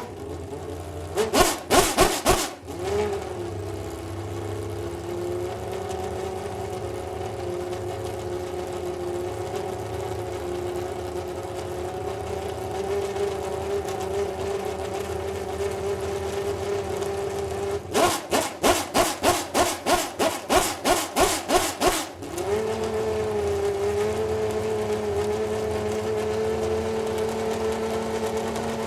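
Menard 4.2-litre V12 of a Panoz DP09B Superleague Formula car running at a steady, high idle. It breaks into rapid, even pulsing, about three to four beats a second, for a moment about a second in and again for about four seconds in the middle.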